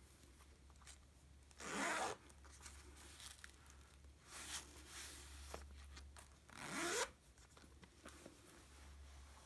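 Zipper of a Chanel lambskin flap bag's inside flap pocket being pulled: two quick zips about five seconds apart, each rising in pitch, with a fainter zip between them.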